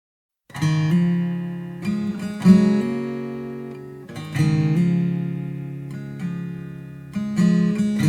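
Background music: acoustic guitar strumming chords that ring out and fade between strokes, starting after about half a second of silence.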